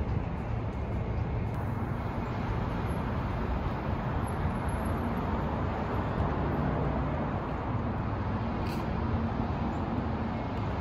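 Steady city street traffic noise, a continuous rumble of vehicles with a low engine hum underneath.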